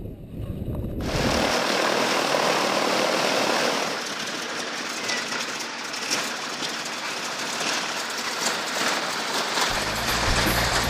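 A North American Harvard's nine-cylinder Pratt & Whitney R-1340 radial engine running with its propeller turning. It is a steady, noisy rush that starts abruptly about a second in and is loudest for the next few seconds.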